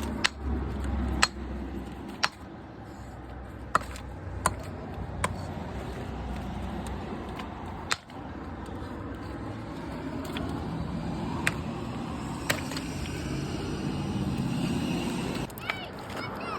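An engine runs steadily and low, while about ten sharp knocks land at irregular intervals, like chunks of broken concrete being dropped or tossed onto a pile.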